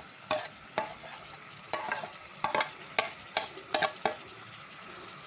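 Onions and spice pastes sizzling in hot oil in a pan, with a metal spoon clicking and scraping about eight times as ginger paste is scooped from a bowl into the pan.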